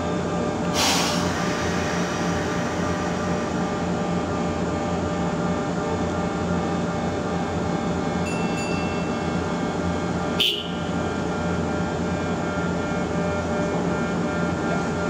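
Yoro Railway 620-series electric train standing at the platform, its onboard equipment giving a steady hum with several held tones. Two short hisses break in, about a second in and again about ten seconds in.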